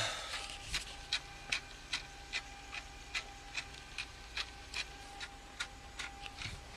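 Faint, even mechanical ticking, about two and a half clicks a second, over a faint steady hum.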